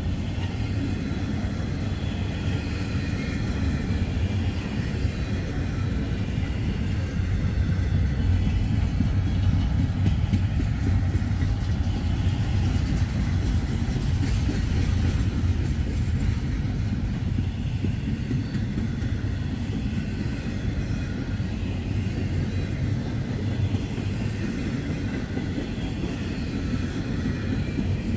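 Norfolk Southern intermodal freight train's cars rolling slowly past, a steady low rumble of wheels on the rails with faint wavering high tones above it.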